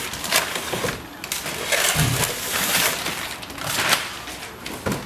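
Packaging rustling and crinkling in irregular bursts as a boxed new radiator is handled, with a couple of dull knocks about two seconds in.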